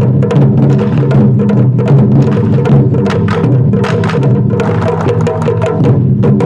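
Japanese festival taiko drumming: drums struck in a rapid, dense, continuous rhythm with sharp stick hits.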